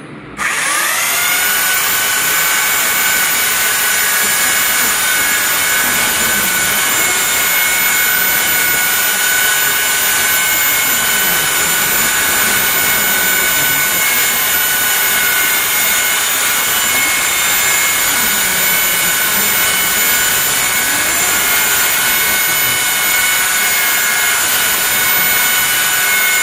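Two belt sanders rigged side by side start up together about half a second in, spinning up with a rising whine, then run steadily and loud at full speed while sanding a hardwood floor.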